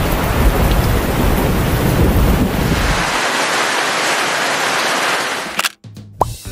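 Heavy rain pouring down as a dense, steady hiss, with a low rumble under it for the first three seconds. It cuts off abruptly about five and a half seconds in.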